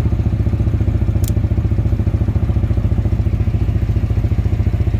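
Husqvarna Svartpilen 250's single-cylinder engine running steadily with an even, rapid exhaust pulse. A single sharp click about a second in.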